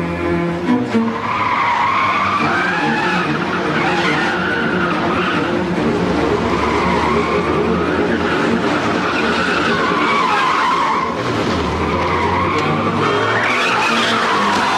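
Car tyres squealing through hard cornering, apparently the Ford Granada Mk1's, in a long screech whose pitch wavers up and down from about a second in.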